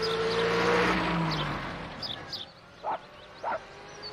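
Small delivery van's engine running as the van drives off, fading away after the first couple of seconds, with birds chirping throughout and two short louder calls near the end.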